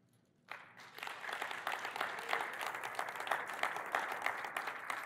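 Audience applauding, breaking out abruptly about half a second in and carrying on steadily.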